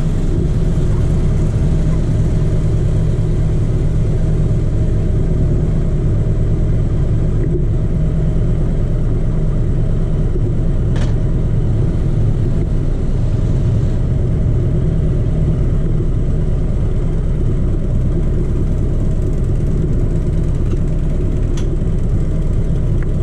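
Harley-Davidson V-twin motorcycle engine idling steadily, heard from the bike itself, with a deep, even idle.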